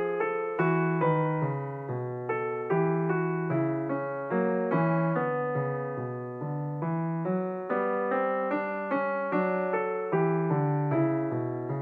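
Background piano music: a steady run of struck notes, each fading out, over a repeating bass line.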